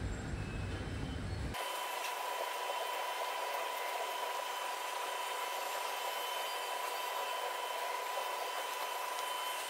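Robot vacuum cleaner running on long-pile carpet: the steady hiss of its suction fan with a thin high whine. It starts suddenly about a second and a half in, replacing a low rumble.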